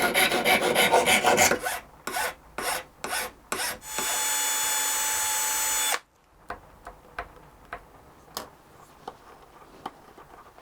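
A file or rasp shaping wood for new violin pegs, rapid rasping strokes that slow to single strokes. About four seconds in, a steady whirring with a fixed pitch, like a small power tool, runs for about two seconds and cuts off suddenly. Only faint light taps follow.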